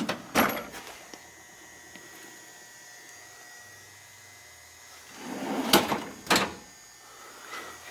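Steel tool-cabinet drawer being worked: a click just after the start, then about five seconds in a drawer slides with a rushing noise and shuts with two knocks.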